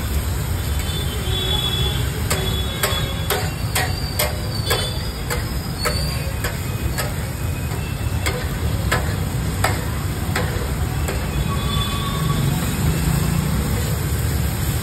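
A steel masher-spatula knocking and scraping on a large flat steel pav bhaji griddle while stirring frying onions: a run of sharp, irregular metallic taps from about two seconds in until a little after the middle. Under it runs a steady low rumble.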